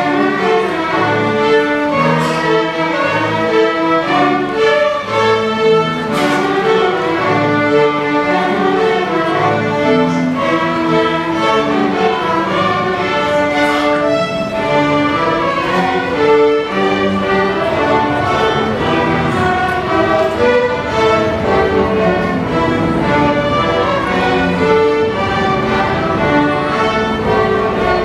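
A children's string ensemble of violins, cellos and double bass playing a piece together, with a steady run of held, bowed notes.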